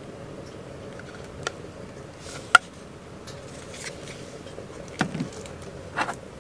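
Plastic battery packs for a heated vest handled on a table: a few short clicks and knocks, the sharpest one near the middle and a couple of duller knocks toward the end, over a steady low hum.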